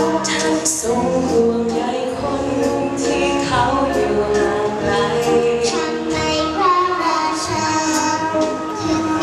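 Wind band playing, with a woman singing the melody over it.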